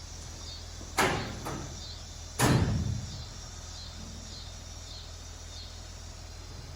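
Two sharp bangs about a second and a half apart, the second louder and heavier, over a steady low hum and the chirping of crickets.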